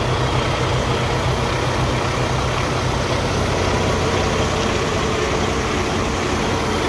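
2014 Kenworth T680 day cab's PACCAR diesel engine idling steadily.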